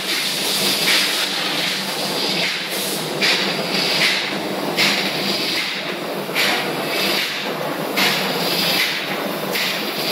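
Engine-room machinery noise around a Bilgmon 488 bilge alarm: a steady hum with a hiss that swells and falls in regular pulses a little more than once a second.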